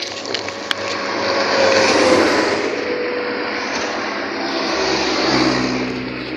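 A road vehicle passing: its engine and tyre noise builds to a peak about two seconds in with a slightly falling tone, then a second swell with a low engine hum comes near the end.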